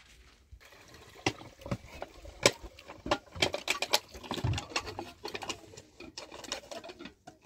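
Irregular series of quick clicks and knocks, with scraping noise between them, thickest in the middle and with one low thud.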